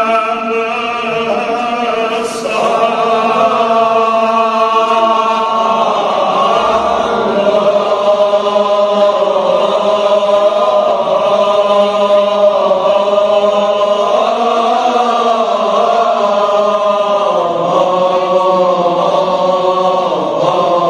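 Kashmiri marsiya: a lead male voice chanting a Shia elegy in long, sliding melodic lines, with other men's voices chanting with him.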